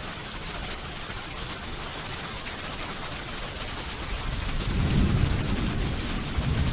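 Steady rain hiss with a low rumble of thunder that swells about two-thirds of the way in and rolls on to the end.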